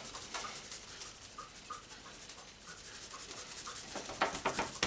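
Seasoning shaker of dry barbecue rub being shaken over raw meat: faint scattered ticks at first, then a quick run of louder rattling shakes near the end.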